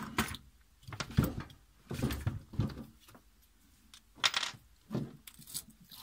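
Small metal hardware clinking and rattling as it is handled by hand: a scatter of short clicks and jingles, likely screws and a terminal block being readied to screw into the wall.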